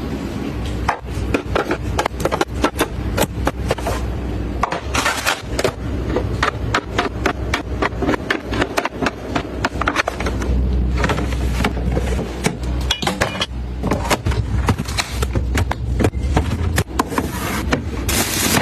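A quick, irregular run of knocks, clicks and clatter from objects being handled and set down, over a steady low rumble, with a couple of brief hissing rustles.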